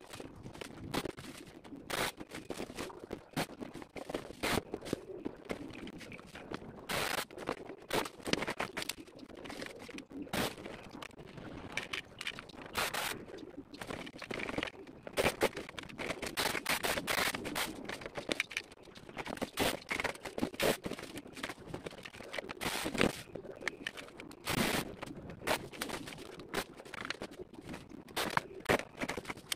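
Leafy branches rustling and crackling, with many irregular sharp snaps and clicks as they are handled and broken.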